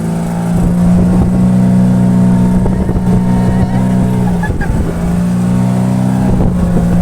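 Boat engine running at a steady pitch, its drone fading briefly about four and a half seconds in before holding steady again, over rushing wind and water noise.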